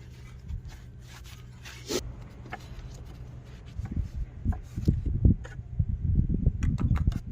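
Rubbing and handling sounds with scattered light knocks and short scrapes, typical of wiping spilled oil off the engine around the oil filler with a rag; they grow busier about halfway through.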